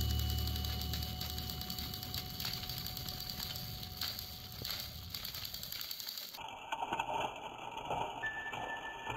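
Plarail toy trains' small electric motors and gears whirring with a light clicking rattle as they run along plastic track, while background music fades out at the start. Near the end come a few sharp plastic clacks as the toy engine tips off the track.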